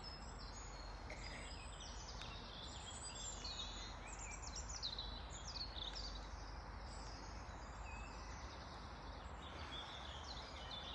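Several songbirds singing, a dense mix of quick chirps and falling trills, busiest in the middle, over a steady outdoor rush.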